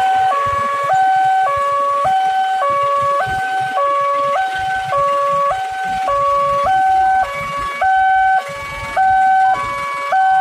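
Railway level-crossing warning alarm sounding a two-tone signal, switching back and forth between a lower and a higher tone about once a second. It is the signal that the crossing is closing for an approaching train.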